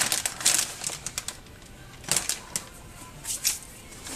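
Hot bacon fat in a freshly baked muffin tin crackling and spitting: irregular sharp pops in small clusters, the densest at the start, a few more about two seconds in and again past three seconds.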